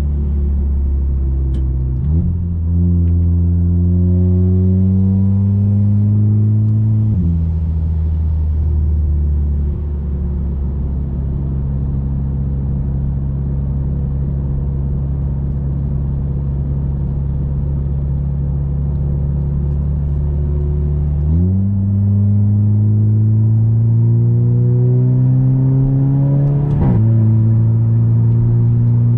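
Audi A3 2.0 TFSI's turbocharged four-cylinder with a 2.5-inch downpipe and catback exhaust: a downshift about two seconds in, the pitch rising under acceleration, an upshift, a long steady cruise, then another downshift and pull. Near the end comes a second upshift with a sharp crack, the shift "fart" that this exhaust gives on S-tronic gear changes.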